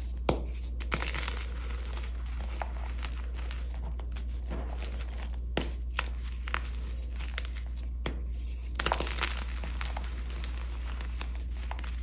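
Hands crushing and crumbling soft dyed gym chalk: a steady crunchy crackle and powdery rustle with scattered sharper cracks, the loudest just after the start and a short cluster about nine seconds in.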